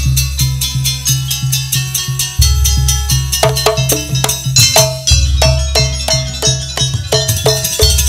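Live jaranan campursari music: drums and tuned percussion playing a steady beat of about three strokes a second, over a deep bass note that changes every two and a half seconds or so. Repeated ringing metallic notes grow busier about halfway through.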